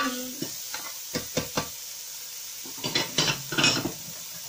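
A spatula knocking and scraping against a frying pan while stir-frying chopped ham, sausage and bacon: a few sharp knocks in the first second and a half, then a longer burst of scraping a little after three seconds in.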